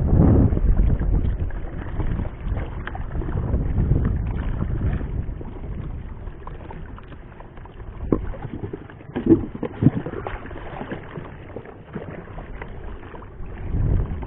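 Wind buffeting the microphone and water sloshing against a small paddled fishing boat, the rumble strongest in the first few seconds. A few light knocks come a little past the middle.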